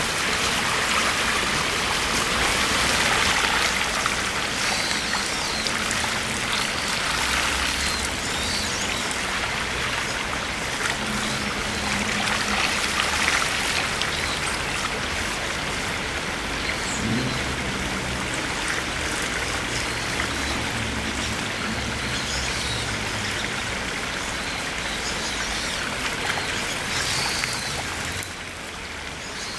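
Shallow spring-fed river water running steadily over gravel, a constant rush and trickle, with water spilling over the rim of a small stone spring well. It drops a little quieter near the end.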